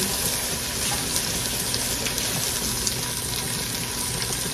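Chopped bell peppers and onions sizzling steadily in an enameled Dutch oven on the stove, with a fine, even crackle.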